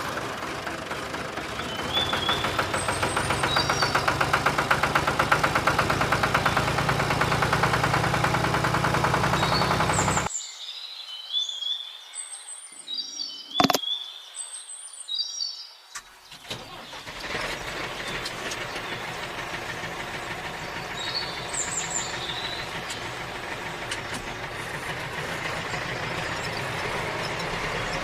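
A small motor running steadily. It stops about ten seconds in and starts again about six seconds later, with a single sharp click in the pause. Birds chirp throughout.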